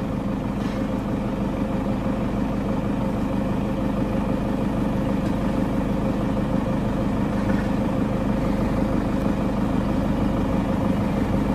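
A vehicle engine idling, a steady, unchanging hum.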